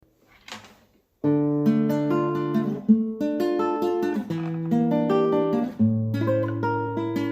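Acoustic guitar playing the intro, chords picked and strummed with ringing notes, starting about a second in after a short soft rustle.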